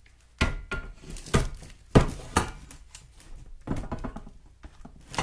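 A series of sharp knocks and clunks, several in a few seconds, from hard objects being handled and set down.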